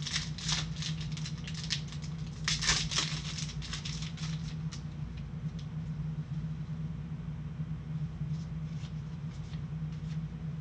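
Trading cards being flipped through and slid against one another by gloved hands: a quick run of scratchy flicks and rustles in the first half, thinning to scattered faint ticks. A steady low hum runs underneath.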